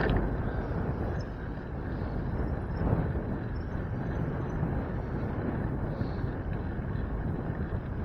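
Wind rushing over the microphone along with steady road and traffic noise, recorded while riding a bicycle.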